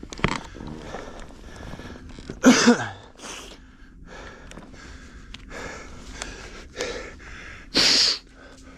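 A mountain biker breathing hard and gasping from the effort of pedalling through deep snow. There are several heavy exhales, with a grunt about two and a half seconds in and the loudest breath near the end.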